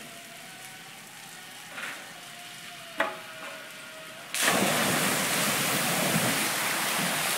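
A giant water-park tip bucket dumps its load: a single sharp knock about three seconds in, then, about four and a half seconds in, a sudden, loud, steady rush and crash of tons of water pouring onto the pavement.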